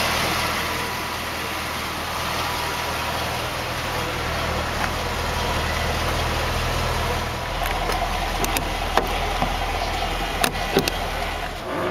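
Steady low rumble and hiss of outdoor background noise, with a few sharp clicks in the last few seconds as the car's fuel door is pushed open and handled.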